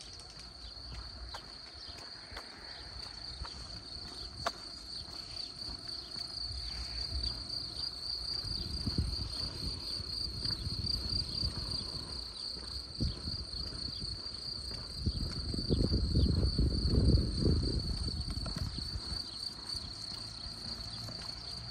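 Crickets chirping in a steady, continuous high trill. A low rumble swells under it about nine seconds in and more loudly around sixteen to seventeen seconds in.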